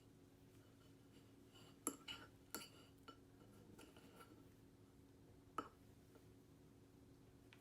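Quiet kitchen with a faint steady hum, broken by a few light clinks of dishes or cutlery: three close together about two seconds in and one more past the middle.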